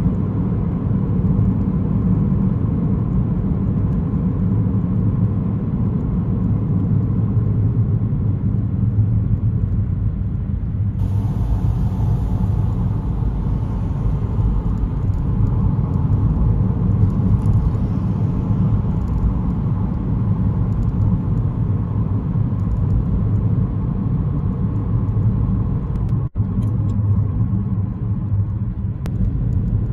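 Steady low rumble of a car driving, heard from inside the cabin: tyre and engine noise. It briefly cuts out near the end.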